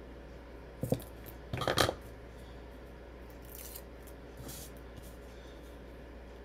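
Handling of craft materials on a worktable while foam tape is laid around a card window: a sharp click just before a second in, a short cluster of clicks and taps just before two seconds, then two faint rustles.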